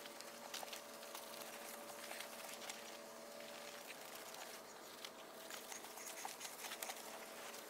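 Soapy wash mitt scrubbing a painted alloy wheel: faint wet rubbing with a fizzing crackle of suds and small ticks.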